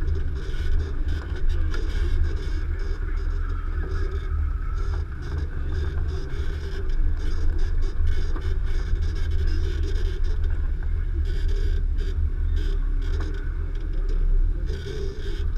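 Nissan Xterra Pro-4X's 4.0-litre V6 running as it drives over off-road terrain: a steady low rumble with scattered light knocks and rattles.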